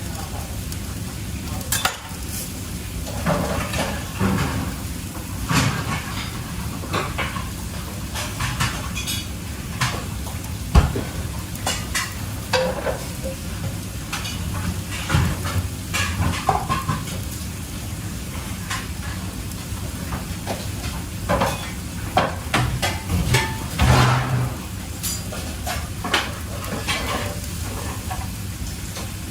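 Food sizzling as it fries in a pan, stirred with a utensil that scrapes and clinks against the pan at irregular moments, over a steady low hum.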